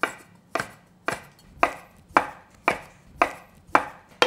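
Chef's knife chopping through folded, rolled-out noodle dough and knocking on a wooden cutting board: even strokes, about two a second, as the dough sheet is cut into knife-cut noodles.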